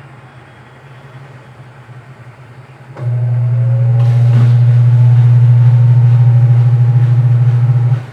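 Midea 12 kg washing machine running. A low hum with a faint rising whine becomes loud about three seconds in and cuts off abruptly about five seconds later.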